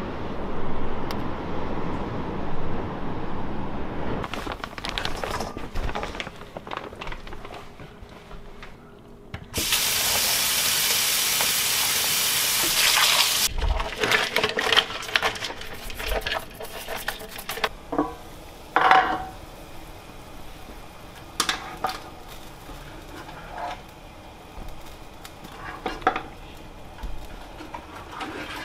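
At first a steady rush of wind and surf at a rocky shore. Then a kitchen tap runs hard into a metal bowl for about four seconds, followed by splashing and knocks as live rock crabs are handled in the bowl of water.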